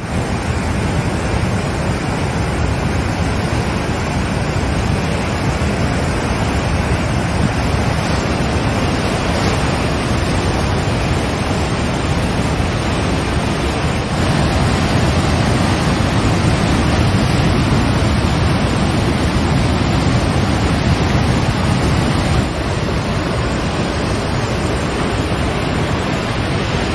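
Flooded river pouring over a weir: loud, steady rushing of churning floodwater, with wind buffeting the microphone. It steps up a little in level about halfway through.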